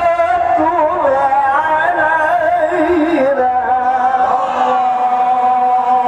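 A man's voice reciting the Quran in melodic tilawah style. It winds through quick wavering turns for the first half, then holds one long steady note to the end.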